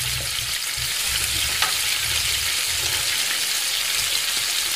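Breaded potato corn dogs deep-frying in hot oil in a wok: a steady sizzle while metal tongs turn them.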